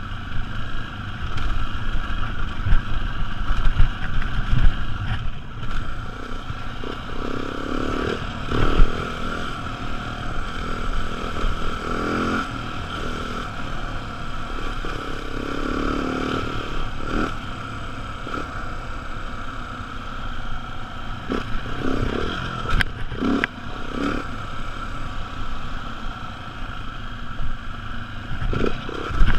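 Beta enduro dirt bike engine running under a rider on a rough dirt track, its pitch rising and falling with the throttle, with clattering from the bike over the bumps and a few sharp knocks late on.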